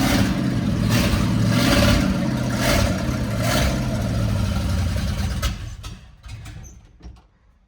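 A 7.5-litre V8 truck engine running rough with uneven bursts of revs, then faltering and dying away about six seconds in. The engine is not yet taking its own fuel and is kept going on starting fluid.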